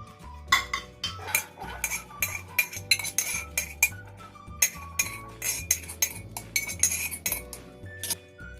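A spoon scooping boiled chickpeas out of a pressure cooker pot, metal clinking and scraping on metal in a quick run of sharp knocks.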